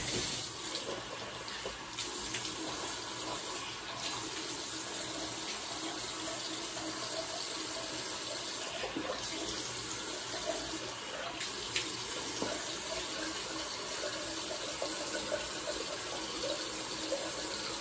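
Bathroom sink faucet running steadily, water pouring into the basin while a face mask is rinsed off. It comes on suddenly at the start.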